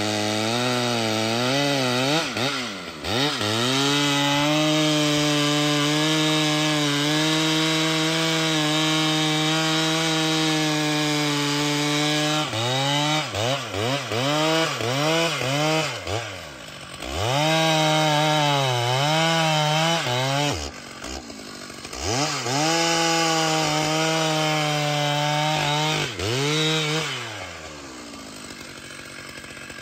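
Large two-stroke chainsaw running at high revs while cutting wood, its engine note dipping and climbing back several times as the throttle is eased and reopened. Near the end it falls back to a much quieter low-rev run.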